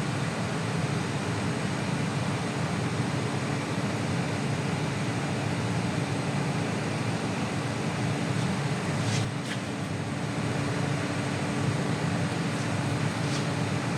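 Steady workshop background hum and hiss at an even level, with a constant low tone running under it. A few faint light clicks come about nine seconds in and again near the end.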